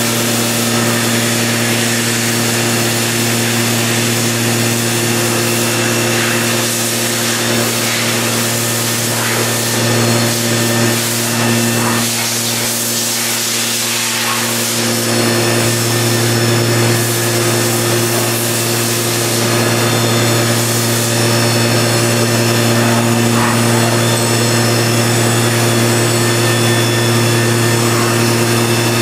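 Mazak VTC 20 B vertical machining centre running without cutting, a steady low hum with a hiss as the spindle head moves through its travel.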